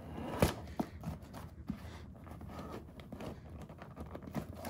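Hands working a BMW E36 headrest cover loose from its foam, a faint rubbing and rustling of the cover material, with a light knock about half a second in.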